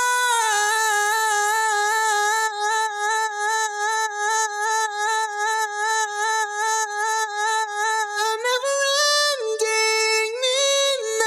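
Female lead vocal, heavily processed in Logic Pro, holding one long wavering sung note that moves to other notes near the end. From about two seconds in, its level pulses at even spacing, the thumping effect that makes the vocal duck in time with a kick drum.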